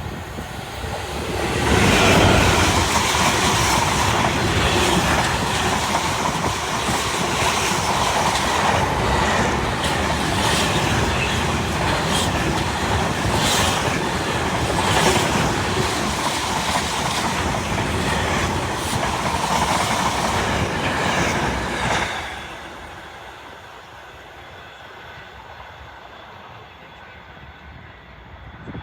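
Class 66 diesel locomotive hauling a freight train past, with the wagons' wheels clattering in a quick repeated clickety-clack and some wheel squeal. The noise builds about a second and a half in and cuts off suddenly about 22 seconds in as the last wagon passes.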